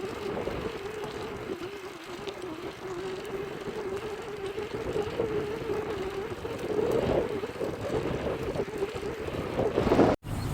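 Fixed-gear bicycle drivetrain (chain, chainring and cog) running with a steady, slightly wavering whir: the ordinary friction noise of the drivetrain. The sound breaks off briefly just before the end.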